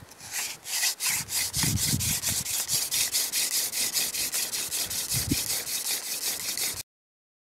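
Hand-drill friction fire: a yucca spindle spun back and forth between the palms, drilling into an eastern white cedar hearth board, making a fast, even, hissing rub at about five strokes a second. It cuts off suddenly near the end.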